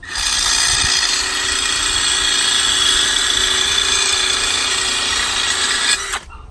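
Electric grinding wheel grinding the cutting edge of a steel lawn mower blade to sharpen it: a loud, steady grinding hiss over the motor's hum that starts suddenly and cuts off about six seconds in.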